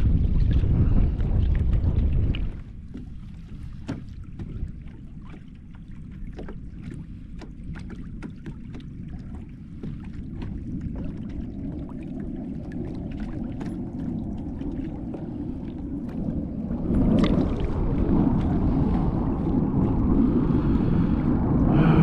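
Wind buffeting the microphone on a kayak, easing after a couple of seconds to water lapping against the hull with many small irregular ticks and splashes, then the wind gusting up again near the end.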